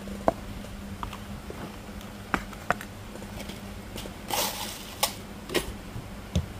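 A string of light knocks and clicks as a large tray, a round wooden board and a glazed ceramic pot of succulents are set down and shifted on a wooden table, the sharpest knock just after the start, with a short scrape about four seconds in. A low steady hum runs underneath.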